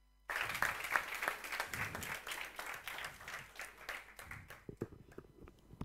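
Audience applauding, starting abruptly about a third of a second in, then thinning to scattered claps over the last couple of seconds.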